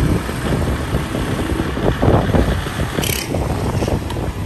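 Riding on a motorcycle through street traffic: engine and road noise with wind buffeting the microphone, and a brief high hiss about three seconds in.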